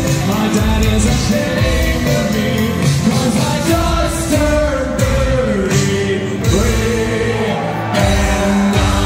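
Live pop-rock band playing loudly: sung vocals over keyboards, electric guitar and drums.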